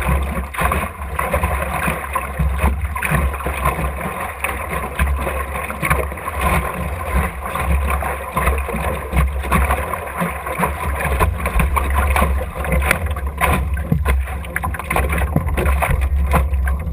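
Water rushing and slapping against the hull of an Optimist sailing dinghy under way, with wind buffeting the boat-mounted microphone as a steady low rumble and short knocks and slaps throughout.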